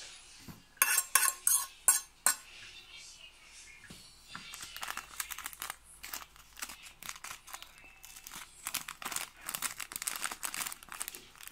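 A few loud, sharp knocks as the pot is tipped to slide the spaghetti onto the plate. Then a crackly rustle of a plastic seasoning sachet being torn open and shaken over the pasta.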